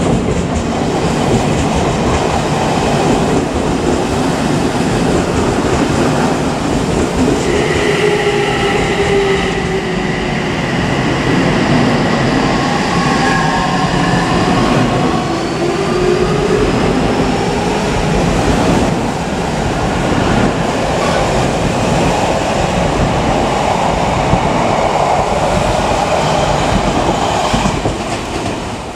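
Odakyu 3000 series electric train pulling out of the station and accelerating past: partway through, its inverter-driven traction motors give several whining tones that glide in pitch, over a steady rumble and clack of wheels on the rails.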